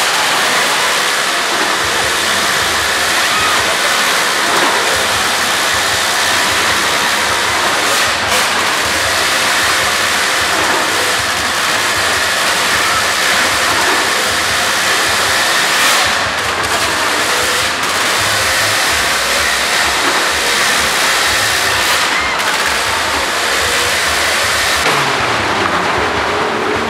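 A car engine running loud and steady inside a wooden wall-of-death drum, the noise dense and echoing, with a few brief knocks.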